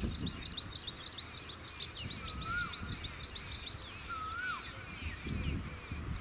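Small birds calling: a quick series of short, high chirps about four a second, with a clearer whistled note that rises then falls, heard twice, about two and a half and four seconds in. A low rumble of noise runs underneath.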